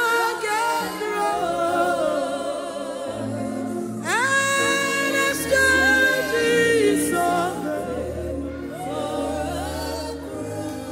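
Live gospel worship music: a woman sings with vibrato into a microphone over electronic keyboard accompaniment, and deep sustained bass notes come in about halfway through.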